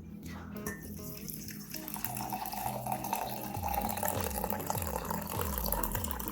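Hot coffee running in a steady stream into a mug, filling it slowly over a spoonful of blackstrap molasses.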